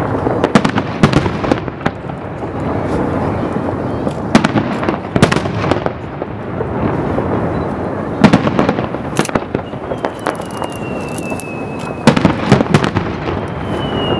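Aerial firework shells bursting in quick succession: sharp bangs and crackling over a continuous low rumble. A high whistle, falling slightly in pitch, sounds twice in the second half.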